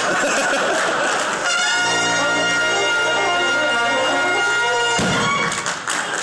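Brass band of trumpets, horns, tuba and trombone holding one long final chord for about three seconds, cut off with a single drum stroke. Crowd chatter comes before the chord, and clapping starts near the end.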